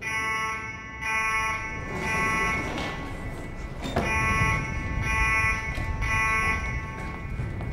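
Electronic school alarm horn that starts suddenly and sounds in repeated buzzing pulses, about one a second. A single sharp knock comes about four seconds in.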